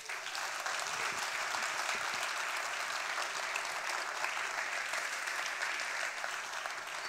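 Audience applauding steadily, easing off a little near the end.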